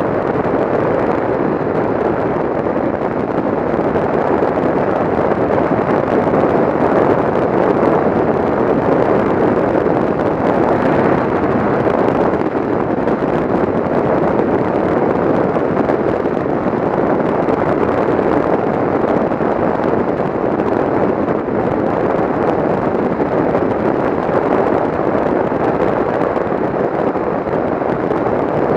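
Steady wind rush buffeting the microphone of a camera mounted on a touring motorcycle riding at road speed, mixed with engine and tyre noise.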